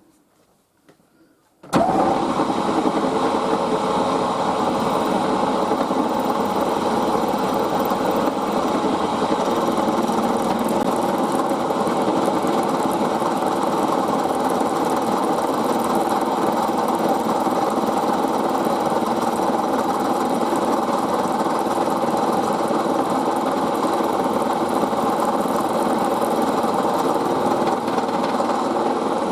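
Milling machine starting up about two seconds in, then running steadily as the end mill cuts down a brass bracket blank.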